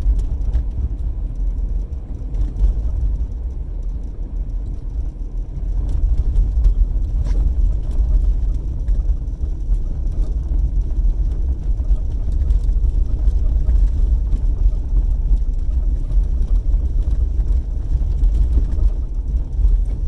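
Car cabin noise while driving: a steady low road and engine rumble.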